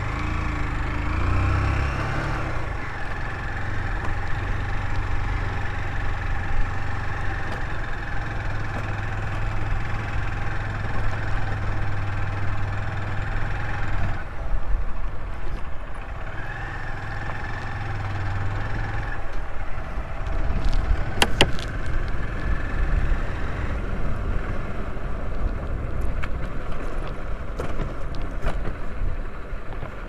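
Motorcycle engine running steadily under way on a dirt road, with road and wind noise; the engine note shifts a few times, dipping about halfway through and picking up again. A short sharp click comes about two-thirds of the way in.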